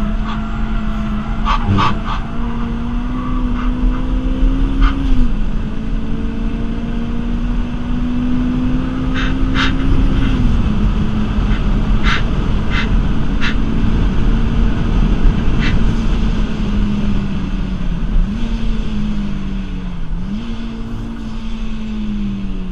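Supercharged Toyota Celica 2ZZ-GE four-cylinder engine heard from inside the cabin at track pace. It pulls with a slowly climbing note that drops sharply about five and ten seconds in, then dips and recovers twice near the end. Short sharp clicks sound over it.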